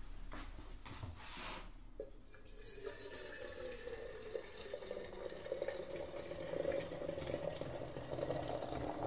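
Water running from a tap into a vessel to fill it for a pot of tea, a steady filling sound from about two seconds in, after brief swishes.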